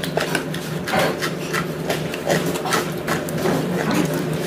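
Scattered light clicks and knocks of metal chopsticks and spoon against an earthenware pot and small dishes during a meal, over a steady low hum.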